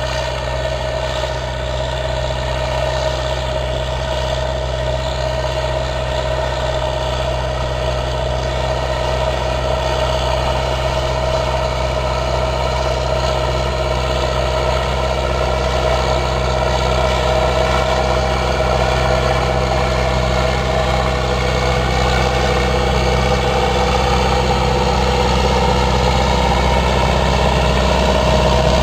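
Ursus 1014 tractor's diesel engine running steadily under ploughing load, pulling a four-furrow plough through the soil, growing slowly louder as it comes closer. The sound is heavily distorted by the camera's microphone.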